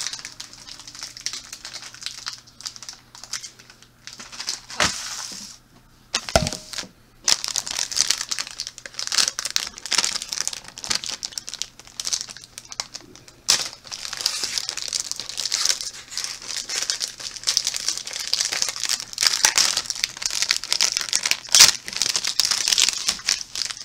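Plastic wrapping on a box of Peeps marshmallows crinkling and tearing as the box is opened, in uneven spells with a few sharp cracks and a short lull about six seconds in.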